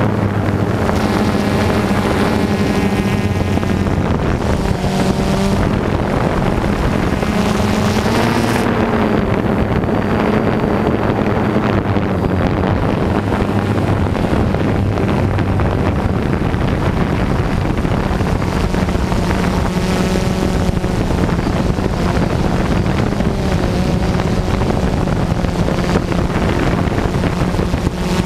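DJI Phantom 2 quadcopter's motors and propellers buzzing steadily, heard close up from the camera mounted on the drone, with wind on the microphone. The pitch shifts a little now and then as the drone manoeuvres.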